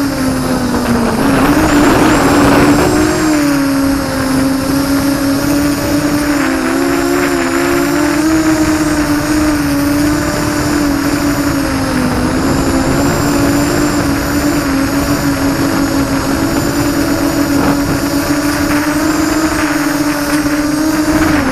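ZMR-250 quadcopter's brushless motors and propellers whining steadily in flight, heard close from the camera mounted on the craft. The pitch wavers slightly as the throttle shifts.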